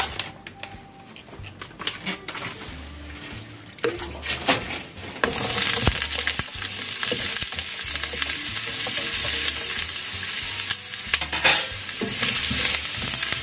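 Food being stir-fried in a frying pan: a few clicks and knocks of a utensil against the pan, then from about five seconds in a steady sizzle as it is stirred.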